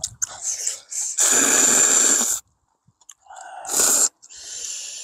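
A person slurping ramen noodles: one long slurp about a second in, then two shorter slurps near the end.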